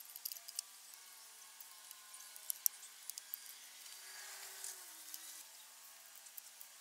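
Light clicks and taps of plastic parts being handled as a battery tray is fitted back onto a quadcopter's plastic body, with a sharper click a little over two and a half seconds in.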